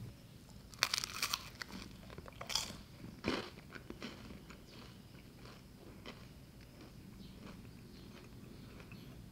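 Crunchy bites into baked cream cheese garlic bread with a crisp crust: a quick cluster of crunches about a second in, two more strong crunches over the next two seconds, then a few fainter ones before it settles.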